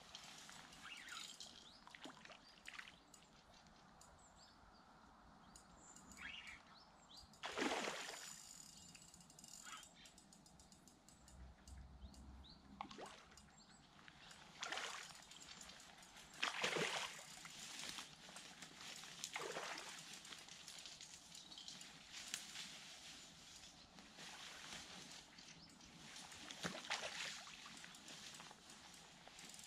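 A hooked asp splashing at the surface as it is played in close to the bank: several separate short splashes, the loudest about eight and seventeen seconds in.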